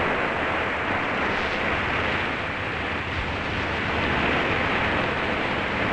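Steady rush of wind and churning sea water around ships under way at speed, an even noise with no distinct events.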